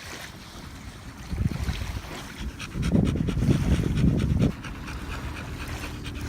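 Rottweiler panting quickly, with loud low rumbling buffets mixed in. A low steady hum takes over from about four and a half seconds in.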